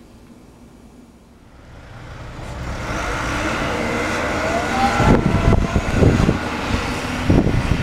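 A motor vehicle driving past, its noise building up about two seconds in and staying loud. From about five seconds in, gusts of wind buffet the microphone in low, irregular thumps.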